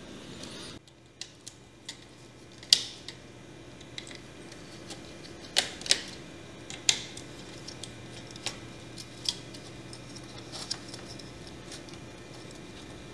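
Scattered sharp clicks and taps of small tools handled on a laptop motherboard, irregular, with a few louder ones in the first half, over a faint steady hum.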